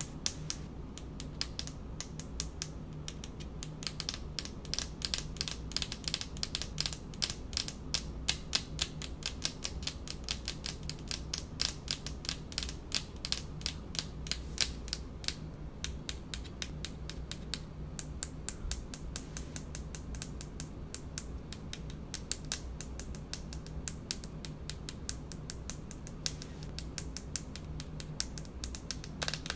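Long fingernails tapping in quick, uneven flurries on a speckled countertop: a dense run of sharp clicks, many a second.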